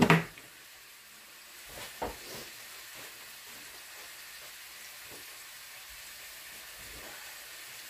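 Steady hiss of pots boiling and simmering on the stove, with a few faint knocks around two seconds in and later.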